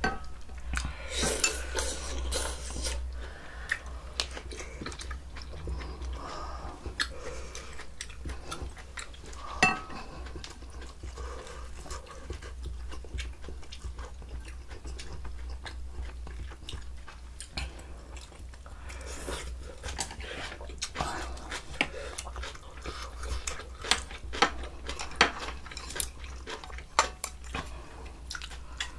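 Spoons and chopsticks clicking and clinking against bowls and side-dish plates during a meal of spicy yukgaejang, with chewing in between. The clinks come irregularly, busiest and loudest in the last third.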